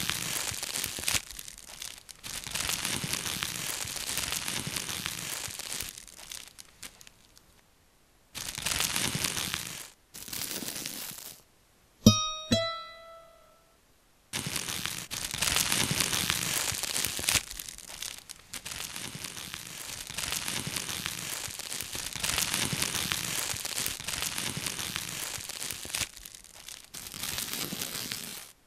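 Scratchy, crinkling noise in abruptly cut stretches with short silent gaps, and two quick plucked notes about twelve seconds in.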